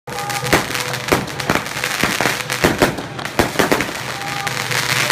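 Firecrackers going off in scattered sharp bangs, about two a second at an irregular pace, over music with held tones.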